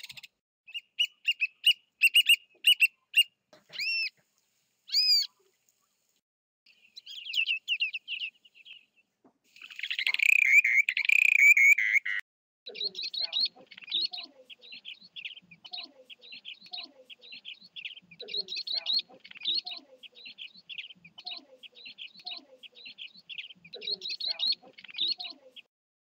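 Western sandpipers calling as a flock: from about halfway through, a steady, dense chatter of high, thin twittering notes that runs to near the end. Before that, calls from a different bird: short rattling notes, two rising whistles, and a loud harsh call.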